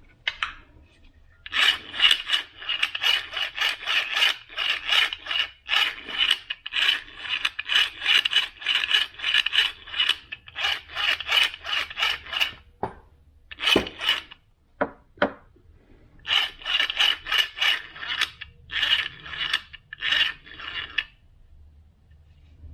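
Fast back-and-forth rubbing or rasping strokes, several a second, in long runs with a short break about halfway through. The strokes come from hand work on a small part.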